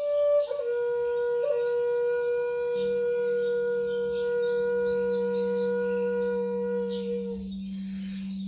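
A flute holding long sustained notes, stepping down to a lower note about half a second in and holding it until a short pause near the end, with a low steady drone entering about three seconds in. Birdsong chirps over the top.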